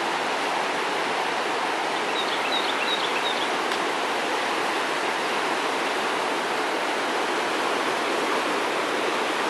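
Flood-swollen Patapsco River rushing past in a steady, even roar of fast water, high after two days of rain. A few faint high chirps sound about two seconds in.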